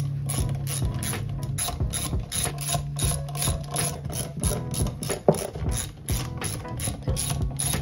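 Hand ratchet wrench clicking steadily, about four clicks a second, as the bolts of an ATV rear drum brake cover are backed out.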